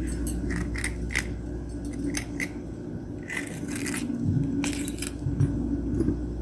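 Knife cutting mild peppers on a cutting board: irregular sharp taps and light scrapes over a steady low hum.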